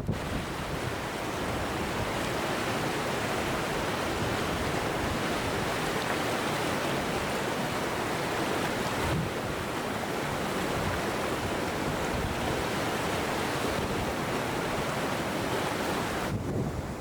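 Steady rushing of flowing river water, with no separate events.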